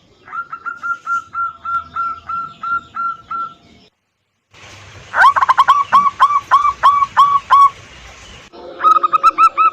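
Zebra doves (perkutut) singing: runs of short, hooked cooing notes at about three a second. The song comes in three separate spliced recordings, with a brief dead-silent cut near four seconds in and a new run starting about five and nine seconds in.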